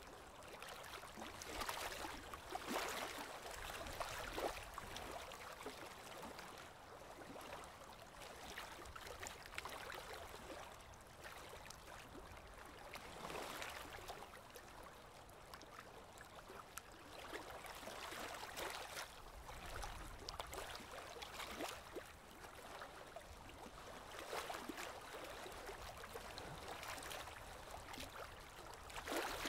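Faint gurgling and trickling of aquarium water, with fine crackling and swells every few seconds.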